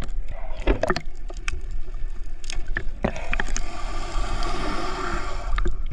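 Water noise heard through an action camera held underwater while swimming: a muffled low rumble with sharp knocks against the camera. About three seconds in, a steady hum joins and runs until just before the end.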